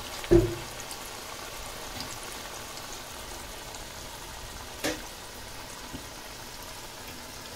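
Moong dal murukku dough deep-frying in hot oil in a kadai: a steady bubbling sizzle from dough just put into the oil. There is a low thump just after the start and a light click about five seconds in.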